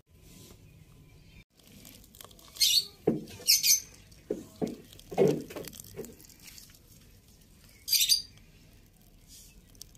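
Hands squeezing water out of grated white radish, with soft wet squishing and a cluster of lower squelches in the middle. Three short, sharp, high chirps stand out: two close together a few seconds in and one near the end.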